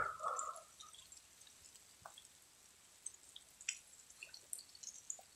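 Water poured briefly from a bottle into a cup, then faint scattered drips and small ticks.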